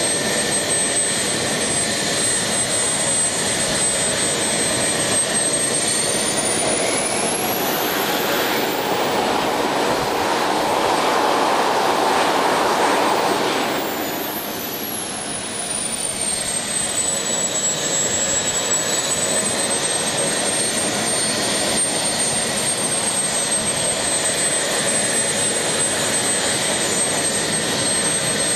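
Model jet turbine running with a steady rush and a high whine. About six seconds in it spools up, its whine climbing very high and the rush growing louder. It holds there for several seconds, then spools back down to its idle pitch.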